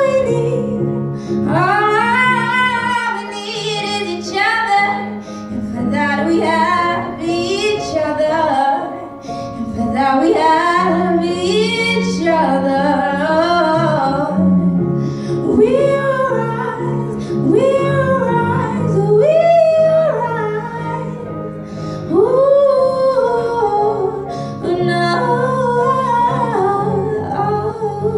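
A woman singing live into a microphone, holding long notes that bend up and down, over a band's steady low accompaniment with bass guitar.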